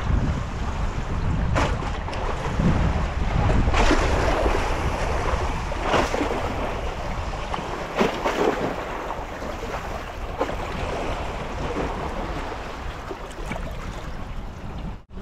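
Wind buffeting the microphone over choppy sea water lapping and splashing against wooden pilings, with a few sharper slaps now and then.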